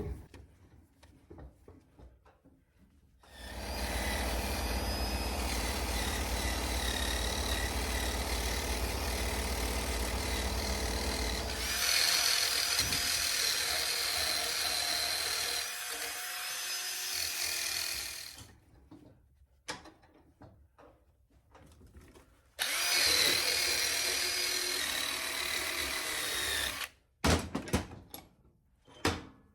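Electric power tool with a wire brush cleaning a brake master cylinder plunger: it runs steadily for about fifteen seconds, its sound changing partway through, stops, then runs again for about four seconds, followed by a few short knocks.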